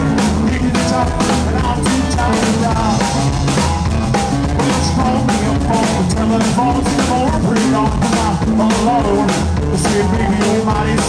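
Live rockabilly trio playing an instrumental break with no singing: electric guitar carrying the melody over upright bass and a drum kit keeping a steady beat.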